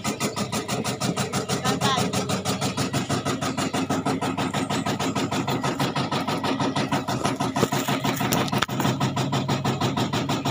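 An engine running steadily at a constant speed, with a fast, even pulse.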